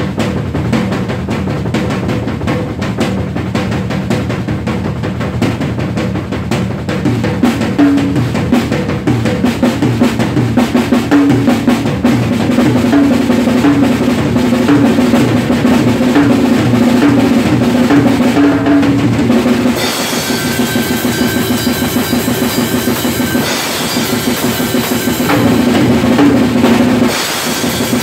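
Acoustic drum kit played solo at speed: fast rolls and fills across the toms and snare over the bass drum. About two-thirds of the way in, cymbals come in, crashing and ringing over the drumming.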